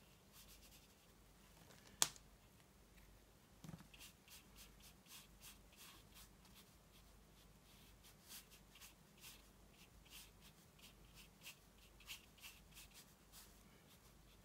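Faint, quick dabs and strokes of a round watercolour brush on 300gsm watercolour paper, a few a second, with a single sharp click about two seconds in.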